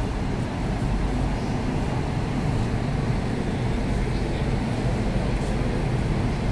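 WAP-7 electric locomotive moving slowly past at shunting speed, giving a steady low rumble.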